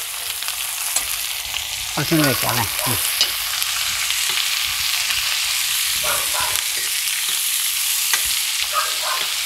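Chopped onions and green chillies sizzling as they fry in sunflower oil in a black iron kadai, with a metal spoon scraping against the pan as they are stirred.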